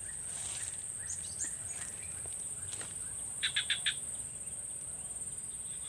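A steady high-pitched insect drone, with a few short bird chirps about a second in and a quick run of four bird call notes about three and a half seconds in.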